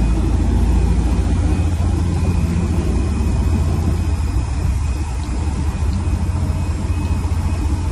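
Fishing boat's engine running with a steady low rumble.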